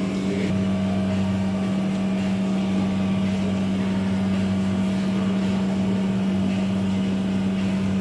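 Steady machine hum with one strong deep tone and fainter tones above it, unchanging, from running equipment such as refrigeration or ventilation.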